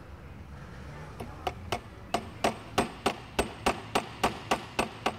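Hammer driving a thin nail into a clamped wooden frame joint: a few light taps about a second in, then steady sharp strikes about three a second.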